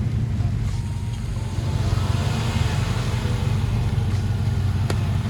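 Range Rover L322 Supercharged's supercharged V8 running steadily at low speed on a slick off-road track, with a short click about five seconds in.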